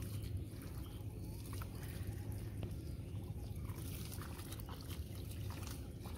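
Hand-weeding in a flooded rice paddy: small splashes and sloshes of shallow water and the rustle of pulled weeds, over a low steady background rumble.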